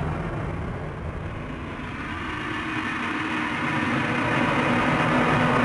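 A dense, low rumbling noise that dips about a second in and then swells back up, with low steady tones coming in near the end.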